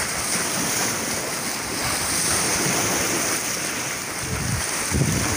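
Sea waves washing over shoreline rocks, with wind gusting on the microphone, the low rumble of the gusts growing near the end.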